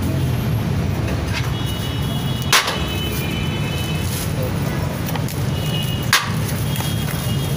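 Steady low rumble of street traffic, with two short sharp clicks, one about two and a half seconds in and one about six seconds in.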